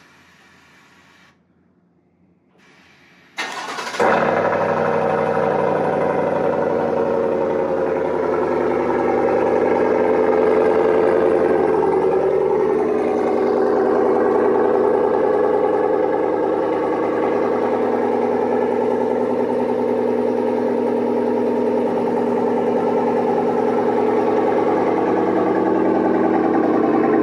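GMC Sierra's 6.2-litre V8 cold-started through a Borla S-Type cat-back exhaust: the starter cranks briefly a little over three seconds in, the engine catches and then runs at a steady, loud idle out of the quad tips.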